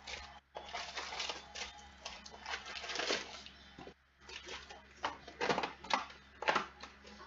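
Crinkling and rustling of trading-card pack wrappers and cards being handled, in a dense run of short crackles with two brief pauses.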